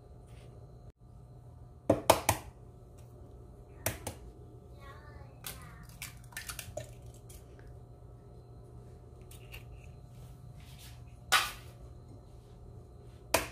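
A can and a blender jar being handled while canned milk is added: a few sharp knocks and clinks, three close together about 2 s in, others about 4 s in, about 11 s in and near the end, over a steady low hum.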